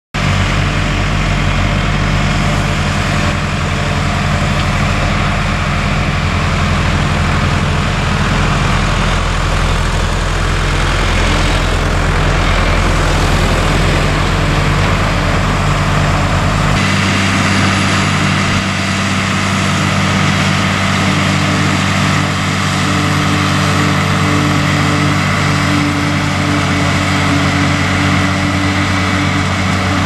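John Deere 4055 tractor's diesel engine running steadily under load, driving a New Holland FP230 forage harvester as it chops hay and blows it into a wagon. About 17 seconds in the sound changes, the deepest hum dropping away.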